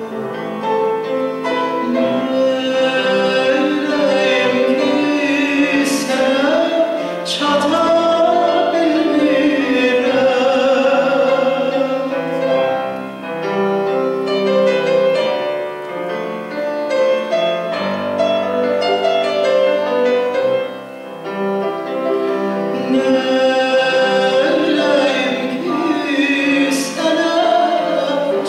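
A male singer sings an Azerbaijani song in a trained, operatic style, with a held, wavering voice, accompanied by a Bösendorfer grand piano. He pauses briefly between phrases.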